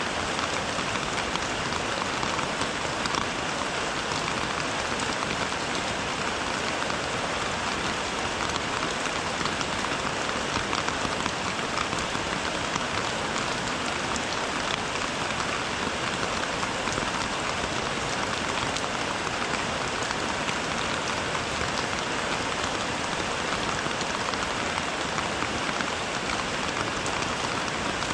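Steady rainfall: an even hiss with many fine taps of drops hitting surfaces, unchanging throughout.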